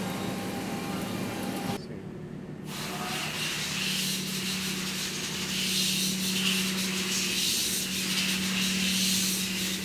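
Tool-room machinery running: a steady low hum under a hiss that swells and fades unevenly, from the area around a CNC tool grinder. The hiss drops out briefly about two seconds in.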